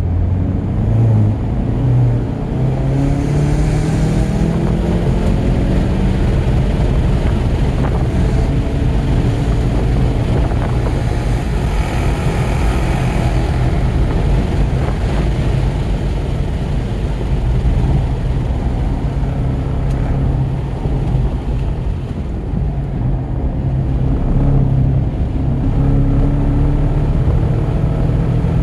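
VW GTI Mk7's turbocharged 2.0-litre four-cylinder engine pulling hard under load on track, its pitch climbing over the first few seconds and then holding high, easing off briefly about two-thirds of the way through before rising again near the end.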